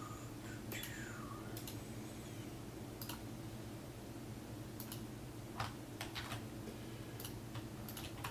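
Scattered computer keyboard and mouse clicks, a few short clicks every second or so, over a steady low hum.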